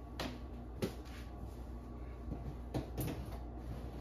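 Picture frames knocking and tapping lightly as they are set in place on top of kitchen cabinets: about five short knocks, the sharpest about a second in, over a steady low hum.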